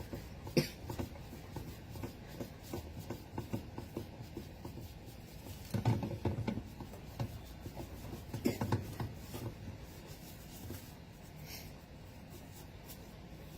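Wet microfibre cloth scrubbing hard at a stubborn stain on a washing machine: quick, irregular rubbing strokes, busiest around six and nine seconds in and dying away near the end.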